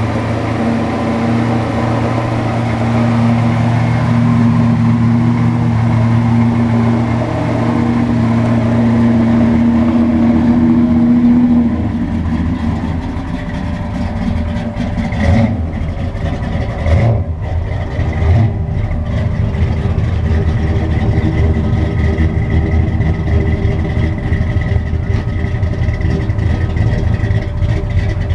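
1968 Chevrolet Impala's 327 small-block V8 running at idle through its exhaust, a steady low burble, with a few brief rises in the engine note around the middle.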